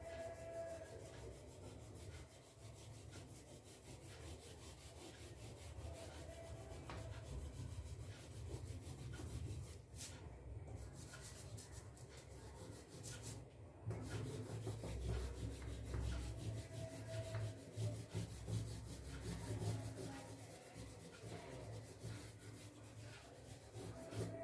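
Oil pastel rubbing and scraping on paper in repeated back-and-forth colouring strokes, faint and uneven.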